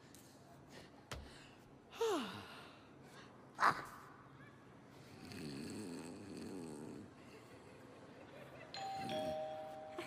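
A clown voicing a cat: a falling vocal glide about two seconds in, a sharp loud cry a little later, and a low wavering snore-like sound in the middle. Near the end a two-tone ding-dong doorbell chime sounds, high note then low.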